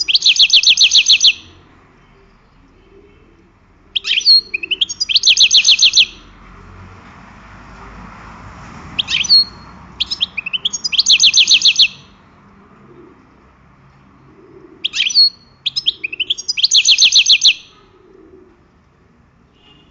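A songbird singing the same short song four times, about every five and a half seconds. Each song is a couple of quick high notes, then a fast, even trill lasting about a second.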